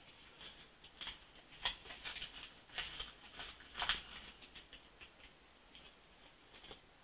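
Faint crinkling and rustling of a small plastic zip bag as it is opened and a soft plastic tail is pulled out, with a few sharper crackles in the first four seconds before it dies down.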